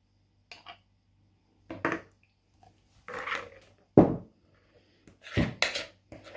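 A metal spoon scraping and packing a thick fermented fish-roe mixture into a glass jar, with short clinks and scrapes. Then the jar knocks down on the table: a loud thump about four seconds in and another about a second and a half later.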